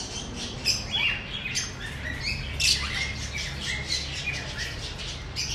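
High-pitched squeaky chirping calls, several a second, many of them short falls in pitch.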